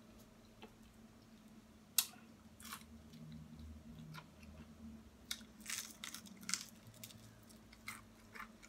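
Crispy Popeyes fried chicken being bitten and chewed close to the microphone. There is a sharp crunch about two seconds in and a run of crisp crunches in the middle.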